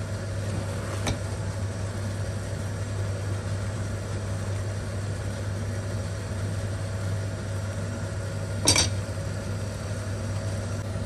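Spatula stirring rice and vegetables in a cooking pot, with a small click about a second in and a sharp clink against the pot near the end, over a steady low hum.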